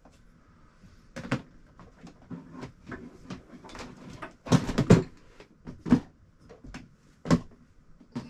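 Knocks and clatter of hard objects being handled while a couple of batteries are fetched: a string of separate bumps, with the loudest cluster about halfway through.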